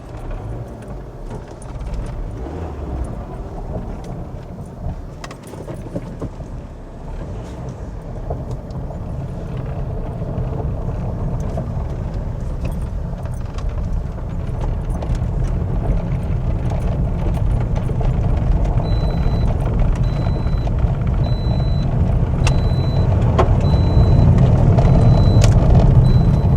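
Car running and driving off, a low road and engine rumble that grows steadily louder, with some light rattling. About two-thirds of the way through, a faint high beep starts repeating at an even pace.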